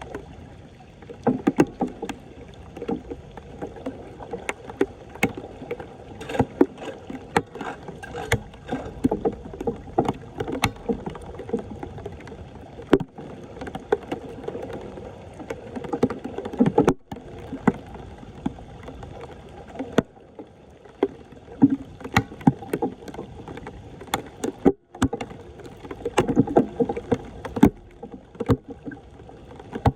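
Floodwater splashing and sloshing, with many sharp knocks and clatters throughout.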